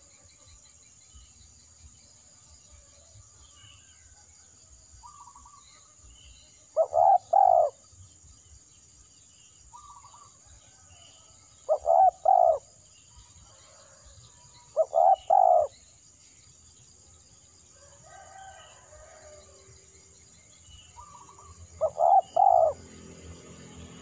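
Spotted dove cooing: four loud phrases of about three quick coo notes each, every phrase under a second long and several seconds apart. Faint chirps of small birds sound in the background.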